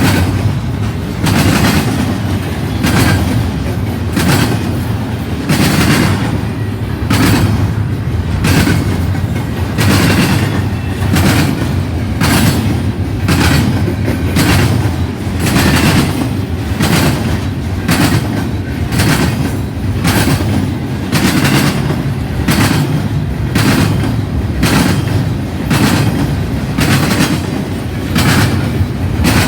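Intermodal freight train cars rolling past: a steady rumble of wheels on rail with sharp clacks about once a second.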